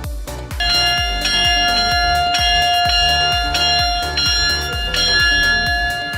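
Background music: an electronic track with a steady beat, joined about half a second in by sustained bell-like ringing tones.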